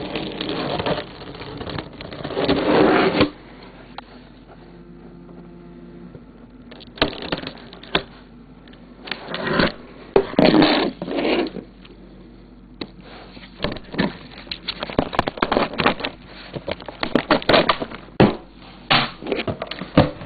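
A cardboard shipping box being opened with a box cutter: blade scraping and slicing through tape, then cardboard flaps and packing material being pulled about. Scraping near the start, a few separate bursts in the middle, and rapid crackling and knocking through the second half.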